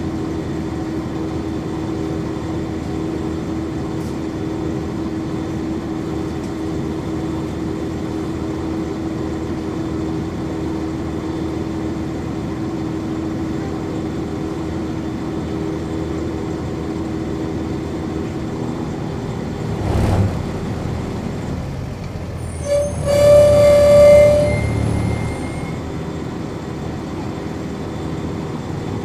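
Interior of a 1999 NovaBus RTS transit bus with a Cummins ISC diesel engine, running with a steady drone. The drone's held tone drops away about two-thirds through, followed by a short sharp noise and, a few seconds later, a loud pitched tone with many overtones lasting about two seconds.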